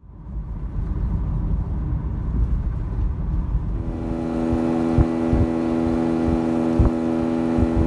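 Boat motor running at a steady speed: a low rumble at first, then a steady engine tone from about four seconds in, with a few short low thumps in the second half.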